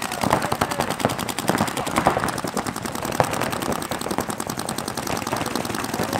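Paintball markers firing fast strings of shots, several guns overlapping into a continuous rapid popping with many shots a second and a few louder cracks standing out.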